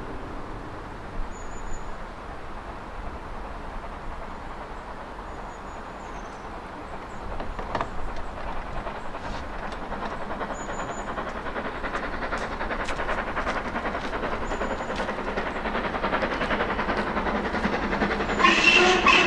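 Steam locomotive approaching with its train, the chuffing and running noise growing steadily louder. Near the end it gives a short blast on its whistle.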